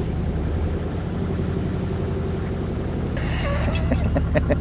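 Motor yacht's engine running steadily under way, with a few light clinks near the end.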